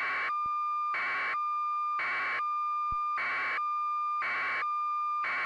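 A steady high electronic tone, broken by a short burst of hiss about once a second.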